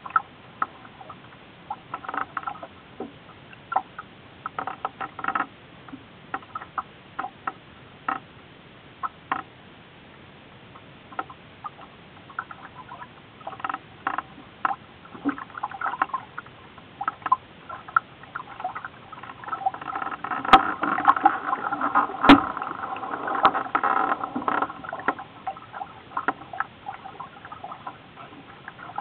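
Water lapping and slapping irregularly against the hull of a small boat under way, busier about two-thirds of the way through, with a couple of sharp knocks.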